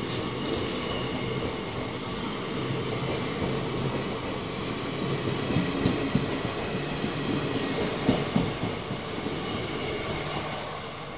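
Passenger coaches of an Indian Railways express train running past at speed: a steady rumble of wheels on rail, with a few heavy knocks about six and eight seconds in. It begins to fade near the end.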